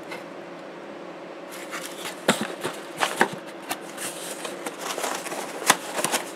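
A cardboard box of paper-taped quarter-watt resistor strips being handled and moved: irregular rustling and sharp clicks of cardboard and paper tape, starting about a second and a half in.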